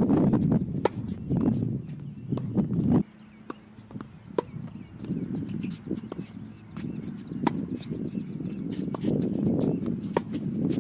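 Tennis rally: sharp pops of racket strikes and ball bounces on a hard court, with footsteps. Underneath is a low rumble of wind on the microphone that drops off suddenly about three seconds in and builds again toward the end.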